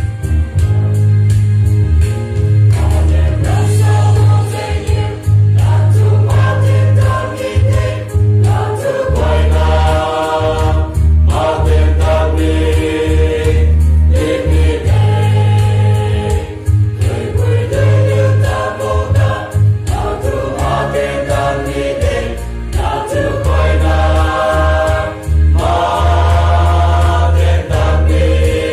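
Mixed youth choir singing a hymn in parts in Liangmai, in sustained sung phrases over a steady low bass accompaniment.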